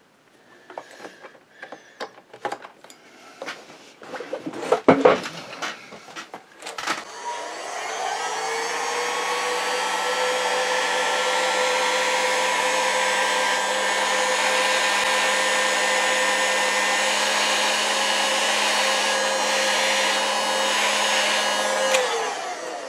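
Electric heat gun shrinking heat-shrink tubing over soldered motor leads. Clicks and knocks come first as the gun and its cord are handled. About seven seconds in the gun is switched on: its fan spins up and it blows steadily with a whine for about fifteen seconds, then winds down as it is switched off near the end.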